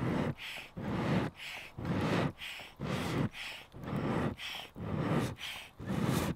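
Wood-and-leather hand bellows pumped into campfire embers, about once a second, each stroke a lower whoosh of air followed by a higher hiss.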